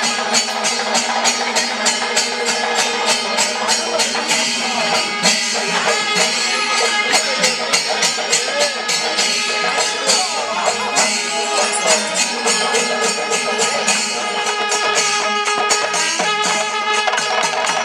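Traditional percussion music with a fast, even beat of metallic jingling strokes, about five a second, over steady held tones.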